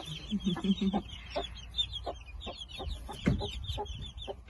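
Brahma hen clucking low, a short run of clucks about half a second in, over the constant high peeping of her young chicks.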